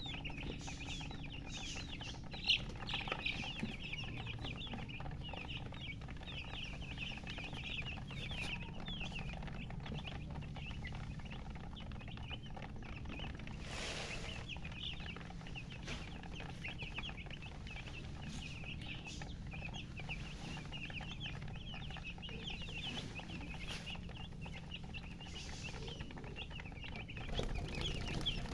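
A group of domestic chicks peeping continuously, many short high-pitched cheeps overlapping, over a steady low hum.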